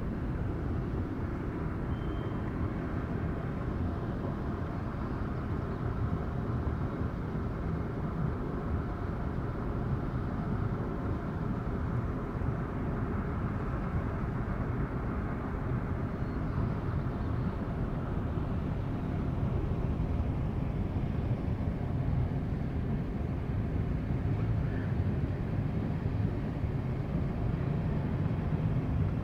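Steady low engine rumble of a running vehicle, with faint steady hum lines, growing slightly louder about two-thirds of the way through.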